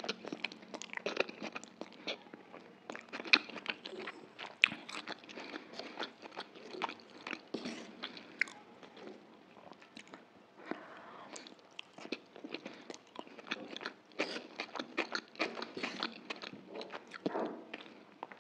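Someone chewing and slurping chicken chow mein noodles: wet mouth smacks and clicks in irregular runs, thinning out briefly about halfway through.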